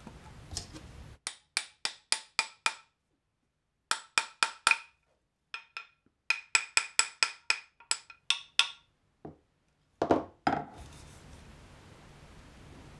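A small hammer tapping a Japanese plane (kanna) to set the blade. There are quick runs of sharp, ringing taps with short pauses between the runs, about two dozen in all. Near the end come two or three duller, lower knocks.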